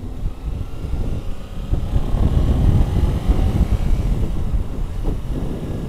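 Motorcycle accelerating from a green light, engine pitch rising, under heavy wind rumble on a helmet-mounted microphone. The engine and wind noise grow louder about two seconds in and ease off near the end.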